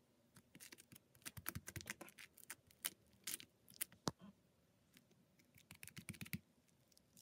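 Faint, irregular clicking and crackling of floam slime, glue slime packed with tiny foam beads, being squeezed and pressed by fingers, in short flurries of clicks.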